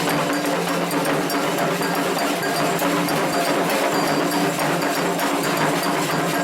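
Candomblé ceremonial percussion: drums and a struck metal bell playing a fast, steady rhythm, with held tones underneath.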